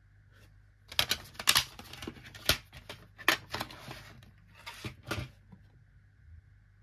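Discs being handled in a black plastic DVD case: a run of sharp plastic clicks and clatter as a disc is pressed off and onto the centre hub, starting about a second in and ending after about four seconds.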